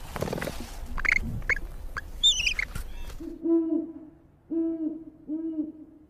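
An owl hooting three times, low and evenly pitched, each hoot well under a second long. Before the hoots there is a jumble of short chirps and noise, with a brief warbling whistle about two seconds in.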